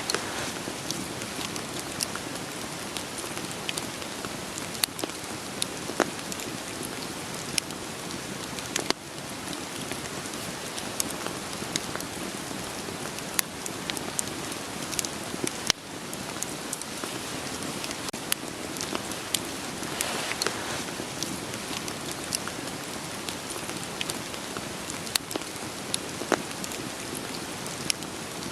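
Steady rain hissing, mixed with a wood campfire crackling: sharp, irregular pops and snaps over the rain.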